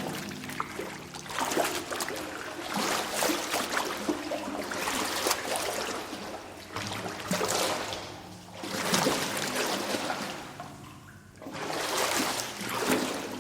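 Water sloshing through a sewer pipe, swelling and fading in surges a few seconds apart, with splashing and trickling in between.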